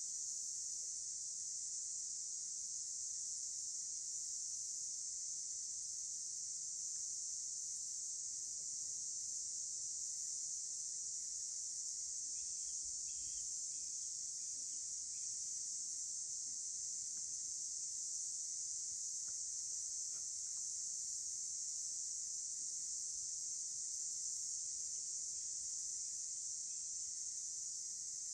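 Steady, unbroken high-pitched chorus of insects. A few faint short chirps are heard about halfway through and again near the end.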